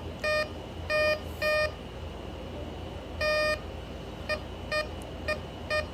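Metal detector giving its audio beeps as its homemade 3D-printed search coil picks up a target. The pattern is irregular: three beeps in the first second and a half, a longer beep a little past three seconds, then four short beeps about two a second. A steady low hum runs underneath.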